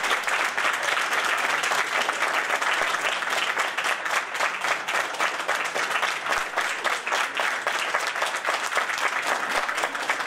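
Steady applause from an audience, many hands clapping at once.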